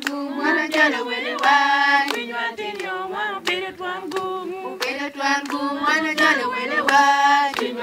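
A group of women singing together, with hand claps keeping time.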